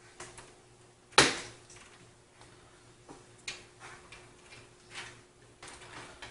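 SATA power cables being handled and plugged into hard drives in a PC case's metal drive cage: one sharp click about a second in, then a few fainter clicks.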